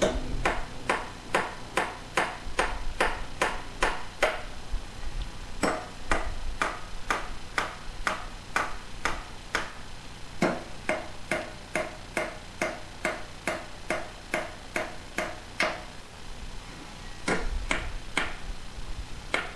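Hammer driving steel nails into a wooden 4x4, steady blows about two a second, each strike ringing with a short metallic ping, with a couple of brief pauses.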